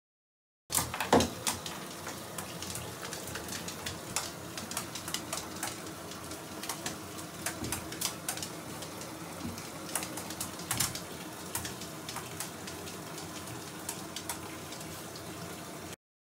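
Bath bomb fizzing in bathtub water: a steady hiss scattered with irregular crackling clicks, with one louder sharp sound about a second in.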